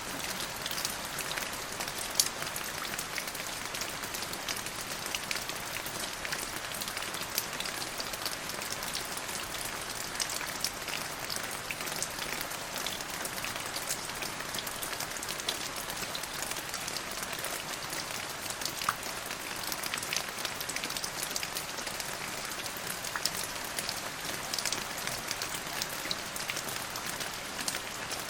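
Steady rain falling, with many separate drops making short sharp ticks over an even hiss.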